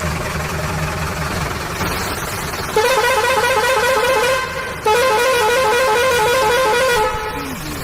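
Electronic toy-vehicle horn sounding two long warbling blasts of about two seconds each, over a steady engine-like hum.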